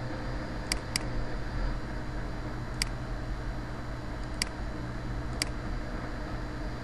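Computer mouse button clicking about five times, single sharp clicks a second or two apart, two of them in quick succession about a second in, over a steady low hum and hiss.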